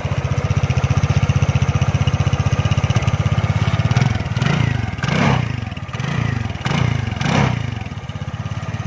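A modern Lambretta automatic scooter's fuel-injected single-cylinder engine idles with a steady pulsing exhaust note just after starting. A little before halfway it is revved in a quick series of short throttle blips, then drops back to idle.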